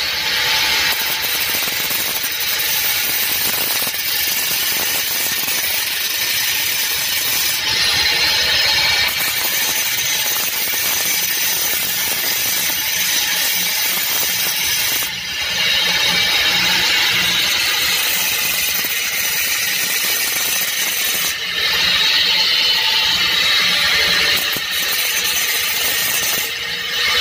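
Angle grinder with a thin cut-off disc cutting into a metal part held in a vise: a continuous loud grinding hiss over the motor. The sound eases briefly about halfway through and again near the end as the disc is lifted or shifted.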